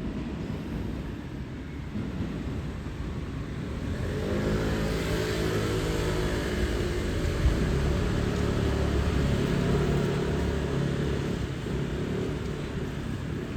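A vehicle passing close by: a low rumble that builds about four seconds in, with a faint rising motor whine, and eases off near the end.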